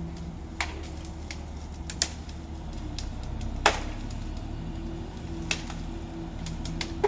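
Willow wood cracking and snapping as a crane-hoisted branch tears free of the trees it is tangled in: irregular sharp cracks, the loudest a little past three and a half seconds in. Under them the crane's engine runs with a steady low hum.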